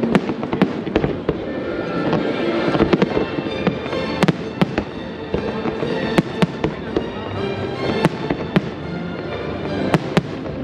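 Fireworks display: many sharp bangs of aerial shells bursting in quick, irregular succession, with music playing underneath.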